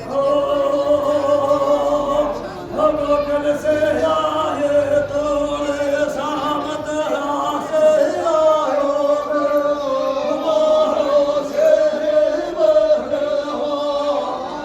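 Male voice singing a Hindi folk devotional song in long held notes, the pitch stepping every second or two.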